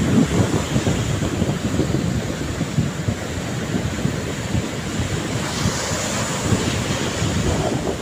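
Rough surf breaking on a sandy beach: a continuous rumbling wash of waves, with wind buffeting the microphone. The hiss of foam swells for a moment a little past the middle.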